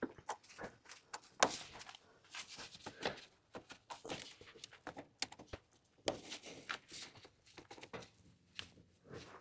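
Gloved hands working a hydraulic hose's flared fitting against a valve fitting, trying to line it up to thread on: irregular scrapes, knocks and small clicks of handling.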